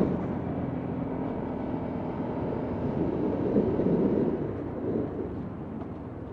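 Lexmoto LXR125's single-cylinder four-stroke engine running under way, with a steady rumble mixed with wind noise; the engine note swells about three to four seconds in, then eases off near the end.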